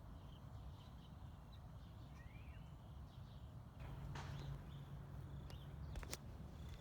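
Faint outdoor background with a steady low rumble and a few short bird chirps, then a couple of sharp clicks near the end.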